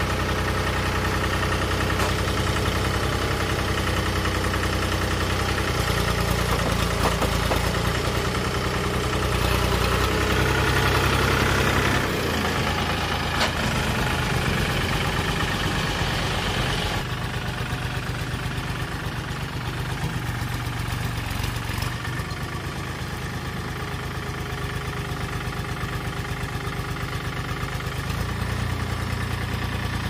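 Sonalika tractor's diesel engine running close by, its speed rising about six seconds in and dropping back about twelve seconds in.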